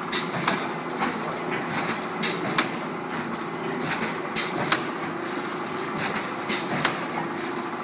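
Automatic Alu-PVC blister packing machine running: a steady mechanical hum broken by sharp clacks every second or so, often in pairs, as its stations stroke, with a thin high-pitched whine underneath.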